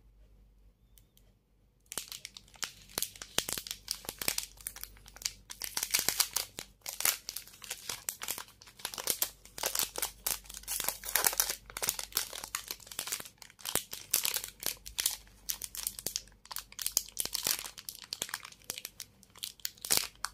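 Foil-lined plastic protein-bar wrapper crinkling and tearing as it is pulled open by hand. A dense, continuous crackle starts about two seconds in and lasts until near the end.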